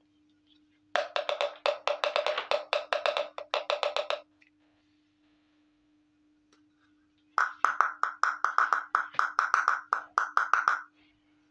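Rapid, even tapping on hollow plastic toy cookware, about six taps a second with a ringing pitch. It comes in two runs of about three seconds, the first lower-pitched and the second higher.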